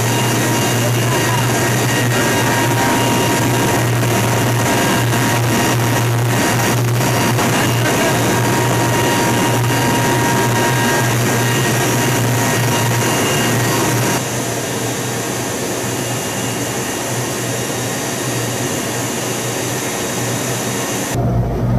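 Steady loud drone of a transport aircraft's engines running, heard from inside the cargo hold with the rear ramp open: a deep hum under a constant whine. It becomes slightly quieter about 14 seconds in.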